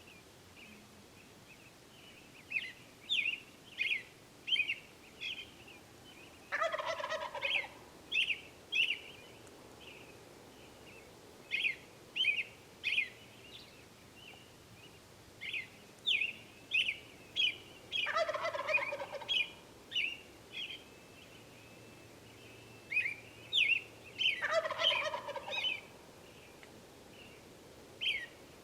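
Wild turkeys, Merriam's, with a tom gobbling three times, each gobble a rattling call of about a second. Between the gobbles comes a steady run of short, high calls, about one or two a second.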